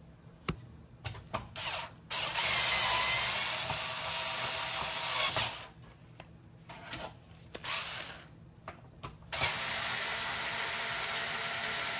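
Cordless electric screwdriver running in two spells of a few seconds each, driving a card-bracket screw in a computer case, with small clicks and knocks between the runs.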